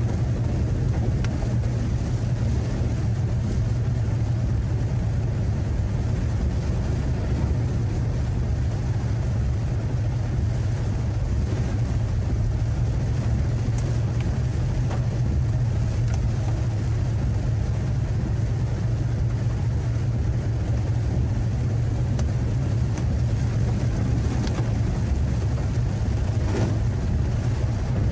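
Car driving along a road: a steady low rumble of engine and road noise.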